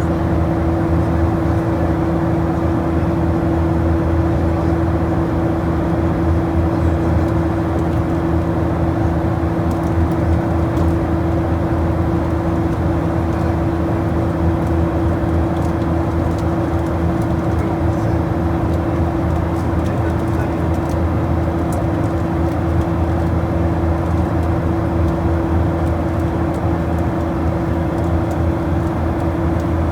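Aircraft engines droning steadily in flight, heard inside the cabin: a constant hum with one steady tone over a rushing noise.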